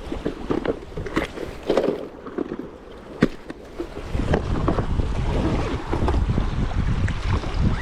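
Wind buffeting the microphone by the sea, with irregular knocks and splashes of water. The low wind rumble grows much heavier about halfway through.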